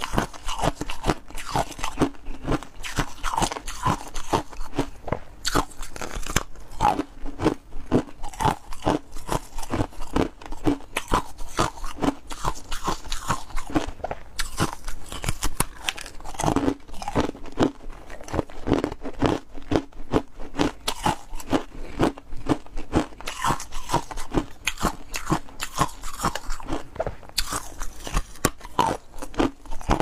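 A person biting and chewing freezer frost: crisp crunches in quick succession, several a second, without a break.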